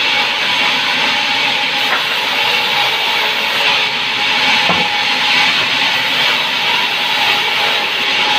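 Power saw cutting through pine board: a steady loud hiss with a constant whine from the motor.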